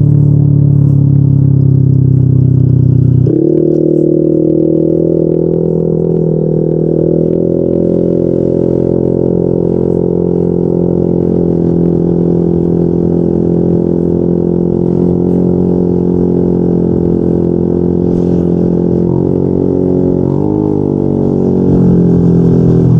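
Yamaha NMAX 155's single-cylinder four-stroke engine running through a Yoshimura RS2 aftermarket exhaust at a steady throttle. About three seconds in the note steps up to a higher pitch and holds. Near the end it dips and wavers back down to a lower note.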